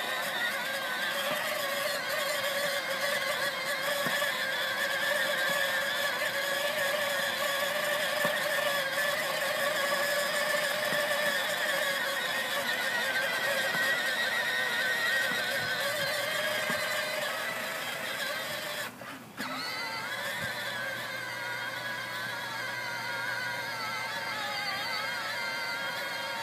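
Electric motor and gearbox whine of a Fisher-Price Power Wheels ride-on car driving across grass, a steady whine whose pitch wavers as its speed changes. It cuts out briefly about two-thirds of the way through.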